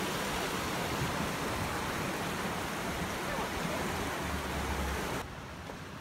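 River water rushing over rocks in shallow rapids, a steady even rush that cuts off suddenly about five seconds in.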